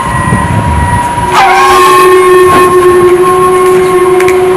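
A loud, sustained horn-like blare of several held pitches, shifting to a lower, fuller chord about a second and a half in.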